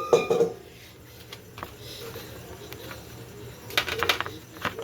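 Faint steady hum with a couple of light clicks, then a quick run of sharp clicks starting a little under a second before the end.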